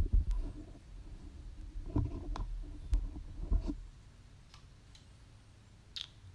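Handling noise from a handheld camera: low rumbles and knocks as it is moved, with a few sharp clicks.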